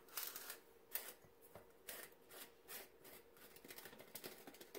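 A string of faint, short plastic clicks and scrapes as a Ninja blender's single-serve cup is handled and its blade base twisted off.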